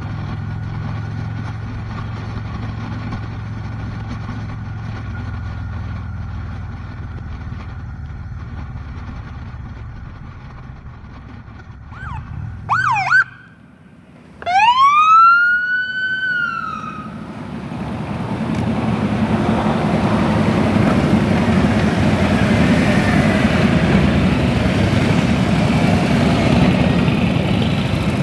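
A steady engine hum fades, and about halfway through a siren gives a quick up-and-down yelp, then one rising-and-falling wail. After that, a louder, even rumble of motorcycle engines and road noise builds and holds.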